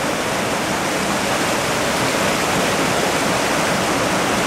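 Small rocky river rushing and splashing over boulders in a steady, loud rush of water.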